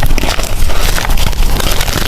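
Blocks of gym chalk being crushed and crumbled by hand: a loud, dense run of crunching crackles.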